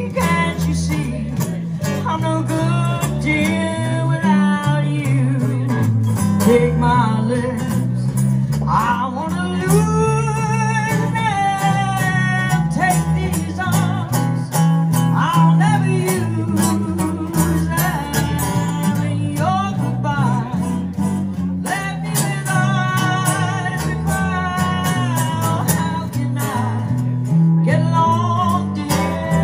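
Live small-band performance of a jazz standard: strummed acoustic guitar and fretless electric bass, with a woman singing the melody over them.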